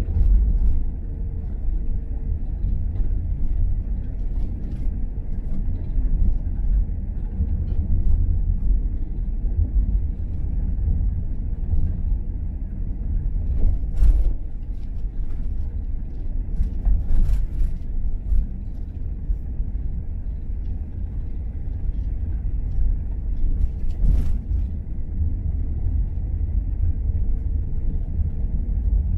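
Car being driven: a steady low road and engine rumble, with a few brief sharp knocks about halfway through and again later on.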